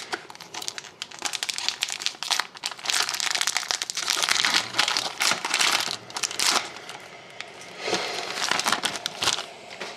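A trading-card pack's wrapper being torn open and crinkled, with a long run of irregular crackling and rustling.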